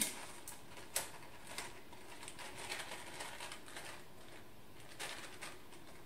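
Light paper rustling and crinkling with a few soft taps and knocks as a rolled paper lantern tube is handled on a table. The sharpest taps come right at the start, about a second in, and again near five seconds.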